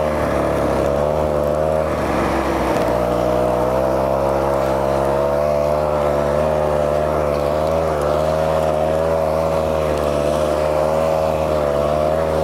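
A small petrol engine running steadily, its pitch wavering slightly up and down.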